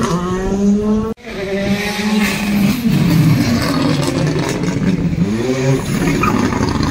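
Rally car engine revving hard through a tight corner, its pitch rising and falling as it brakes, changes gear and accelerates away. The sound cuts out for an instant about a second in.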